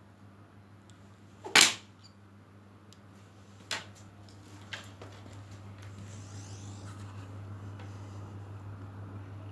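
A loud sharp click about a second and a half in, then two fainter clicks, over a steady low hum that gets a little louder toward the end.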